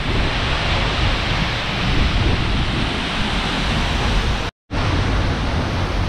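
Waterfall plunging into its pool, heard from just behind the falling water: a loud, steady rush. The sound cuts out for a moment about four and a half seconds in.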